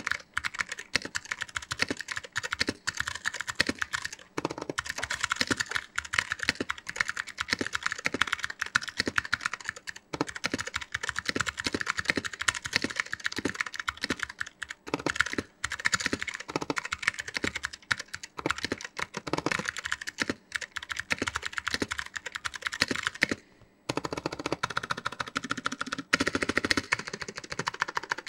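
Steady fast typing on a 60% mechanical keyboard with a 3D-printed case and SKCM Blue Alps switches, a dense run of crisp clicky keystrokes. The typing pauses briefly about four-fifths of the way through, then carries on.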